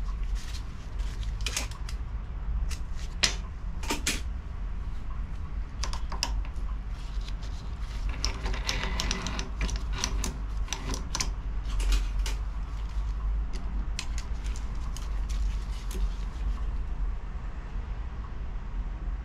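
Metal tools and lathe parts being handled: scattered clicks, clinks and knocks, busiest around the middle, over a steady low hum.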